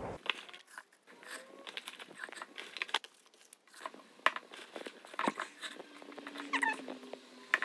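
Handfuls of leafy greens being pushed into a plastic blender cup: soft crinkling and rustling of leaves and plastic, with small irregular taps and clicks.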